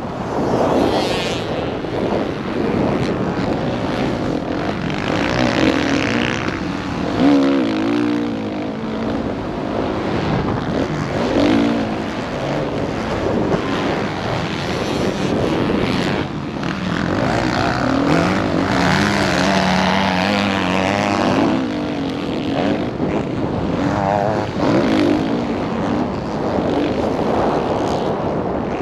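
Dirt bike engine revving up and down as it is ridden hard around a motocross track, heard close up from the bike's onboard camera. The pitch keeps rising and falling with the throttle and gear changes.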